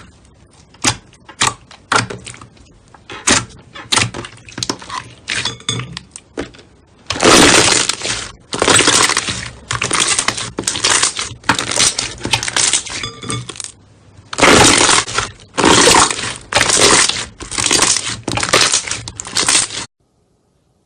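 Slime being squeezed and pressed, crackling and crunching: scattered sharp clicks and pops at first, then from about seven seconds in a steady run of loud crunching squeezes, a bit under two a second, that cuts off abruptly near the end.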